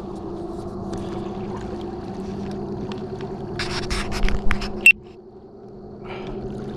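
Baitcasting reel being cranked to retrieve a hooked fish, its gears giving a steady whir. About three and a half seconds in come several loud noisy bursts and then a sharp click; the whir stops for about a second and starts again near the end.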